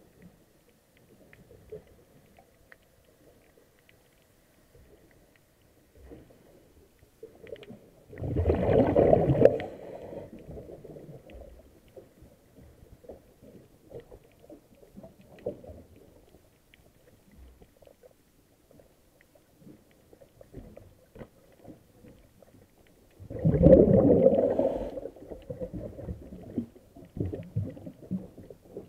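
A diver's exhaled breath bubbling out of the regulator, picked up underwater: two bursts of about a second and a half each, roughly fifteen seconds apart, with faint crackling in between.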